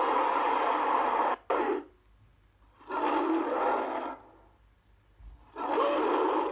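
King Kong monster roar sound effects: a long roar that cuts off abruptly about a second and a half in, then two shorter roars of about a second each with pauses between them.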